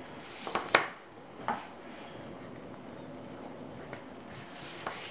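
Paracord being handled and wrapped on a countertop: a few short, sharp knocks and taps as the rope and hands bump the table, the loudest just under a second in and another near the end, over a steady low background hiss.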